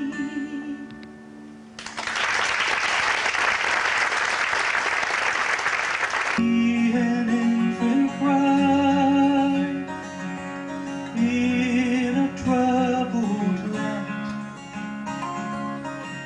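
Live vocal harmony group with acoustic guitar: the music fades, then comes about four seconds of even, hiss-like noise that starts and stops abruptly, and the harmony singing with guitar cuts back in suddenly.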